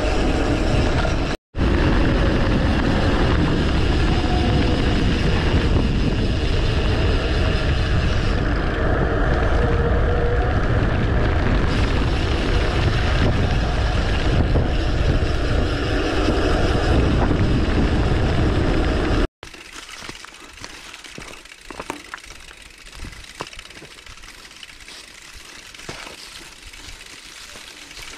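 Wind rushing over the handlebar camera's microphone with tyre noise as a mountain bike rides fast along a paved road. About two-thirds through it cuts off suddenly to a much quieter stretch of light scattered clicks and crunches as the bike rolls along a dirt trail.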